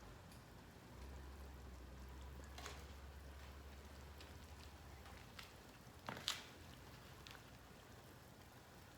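Near silence with a few faint, scattered clicks, and one sharper click about six seconds in.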